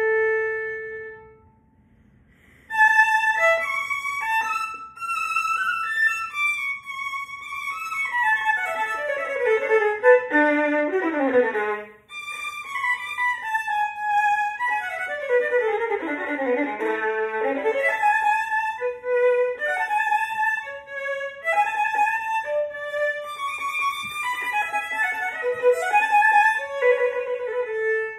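Solo violin playing unaccompanied: a held note dies away, and after a short pause a passage begins with fast runs sweeping down to the bottom of the instrument's range and back up. There is a brief break near the middle, and the passage ends on a held note that stops.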